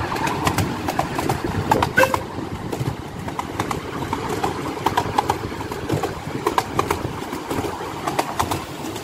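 Miniature steam railway train running on narrow-gauge track, heard from an open carriage behind the locomotive: a steady wheel rumble with frequent clicks and clatter as the wheels pass over the rail joints.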